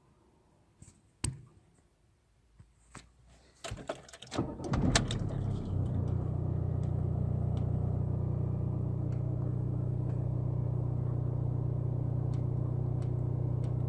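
A few light clicks, then an Audi's engine cranks and starts about four to five seconds in and settles into a steady idle.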